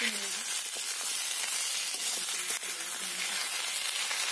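Sliced green papaya and potato frying in hot mustard oil in a wok: a steady sizzling hiss.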